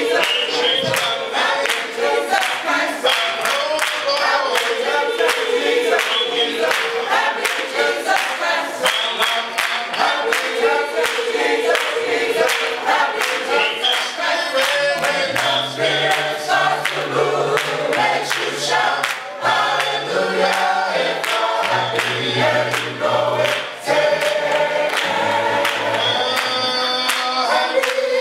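Church choir singing a gospel song together, with hand clapping on the beat. A low bass line comes in about halfway through.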